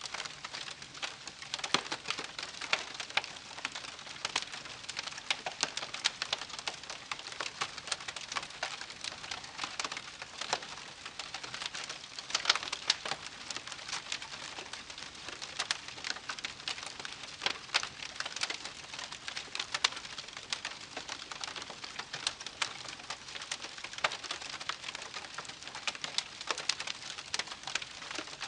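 Wood campfire crackling: a dense, irregular run of small pops and snaps over a soft hiss, with a few sharper, louder cracks.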